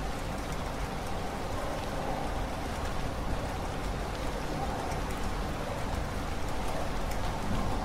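Steady rain falling, an even hiss with scattered single drops ticking through it and a low rumble underneath.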